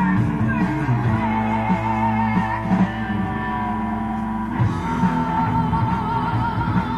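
Electric guitar playing rock music, with a sung melody holding long notes with vibrato over a full accompaniment.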